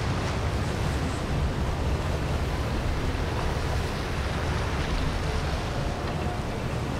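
Steady wind rushing on the microphone over moving water, with a low, fluttering rumble and no distinct events.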